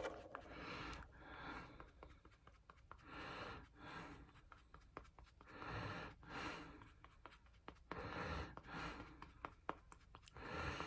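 Faint soft rubbing and patting of a powder puff on the cheeks as blush is blended in: short brushy strokes that come about once a second, with small clicks between them.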